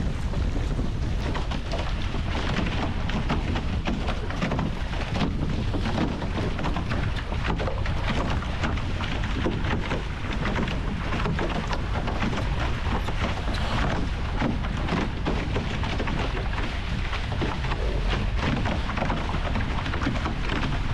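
Wind buffeting an onboard action camera's microphone, with water rushing along the hulls of an A-Class catamaran under sail and a dense crackle of drops striking the camera.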